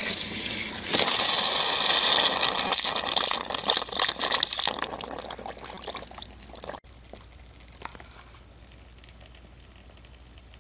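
Water spraying with a hiss from a leaking compression fitting on a saddle valve tapped into a copper cold-water pipe. The fitting was not tightened enough. The spray fades over several seconds and cuts off sharply about seven seconds in, leaving only faint drips.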